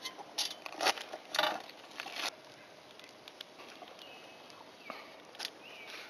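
Handling noise of a solar microinverter's cable and plug connectors being worked by hand on a shingle roof: a burst of short rustles and scrapes with sharp clicks in the first couple of seconds, then only scattered light ticks.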